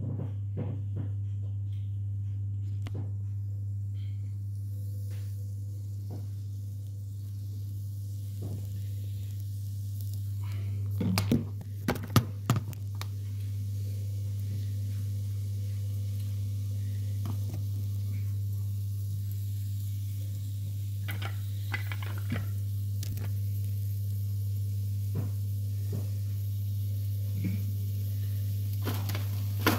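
Vegetables and onion frying in a pan with a faint sizzle over a steady low hum. A cluster of loud knocks from pans and utensils being handled comes about eleven to twelve seconds in.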